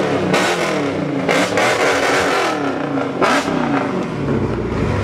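A Dodge Charger's engine is revved hard through its exhaust about three times. The engine note climbs and falls with each rev, as the car is shown off for loudness.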